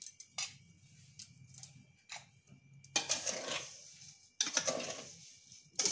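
A few light clinks from a steel bowl on a clay stove, then a hand mixing sugared mango pieces in the bowl, a scraping rustle in two stretches of about a second each, the second starting about four and a half seconds in.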